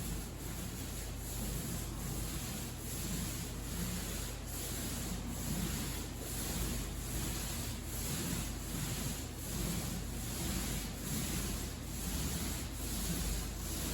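Paint roller rolling primer onto drywall in steady back-and-forth strokes, about two a second, a rhythmic rubbing sound.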